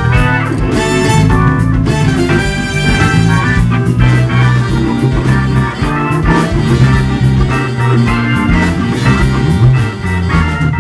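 A live jazz-blues band playing: a Hammond A-100 organ over electric bass and a drum kit, with guitar.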